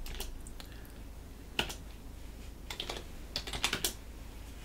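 Computer keyboard being typed on: short key clicks in a few quick clusters, with gaps between them.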